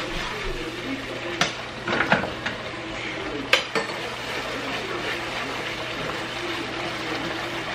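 A spatula stirs and scrapes a simmering hot bacon dressing, thickening with cornstarch, in a stone-coated frying pan. The utensil knocks against the pan three times in the first few seconds over a steady simmering hiss.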